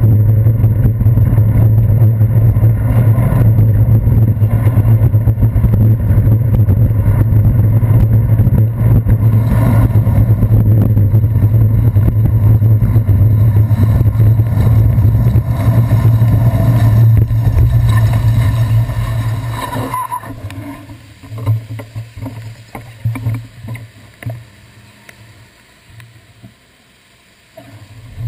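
Steady low rumble of a bicycle rolling over wet city streets, picked up through a handlebar-mounted GoPro Hero 2, with road vibration and passing traffic mixed in. About twenty seconds in the rumble drops away, leaving quieter traffic sound and a few knocks, and it comes back at the very end.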